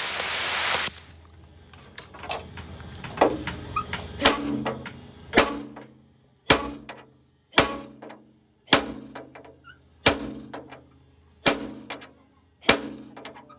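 A hiss that cuts off about a second in, then hammer blows on a steel truck frame or rivet: a few scattered taps, then a steady run of hard strikes about one a second, each leaving a low metallic ring.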